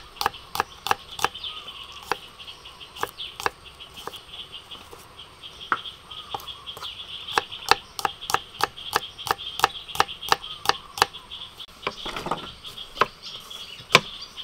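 Chef's knife slicing garlic cloves on a thick wooden chopping board: a quick run of sharp knocks, about three a second, with a few short pauses. Insects chirr steadily and high-pitched behind it.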